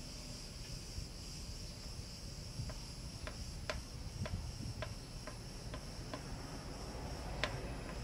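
A run of light clicks, about two a second, as the new toothed timing belt is worked onto the pulleys and tensioner of the Ducati's engine, over a steady high-pitched insect trill like a cricket.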